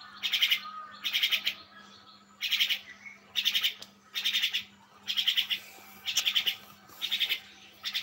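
A young myna calls repeatedly, about once a second. Each call is a short, rasping run of quick pulses.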